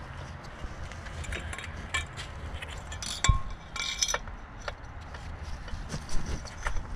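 Scattered metallic clinks and knocks from tools and engine parts being handled, with a sharper knock about three seconds in.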